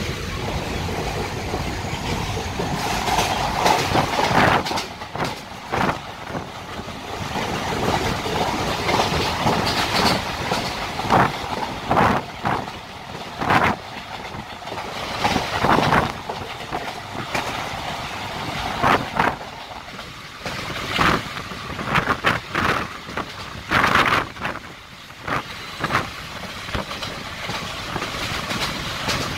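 Passenger train coach running along the track, heard from an open window: steady rolling noise from the wheels on the rails, broken by irregular loud clacks, with wind rushing past.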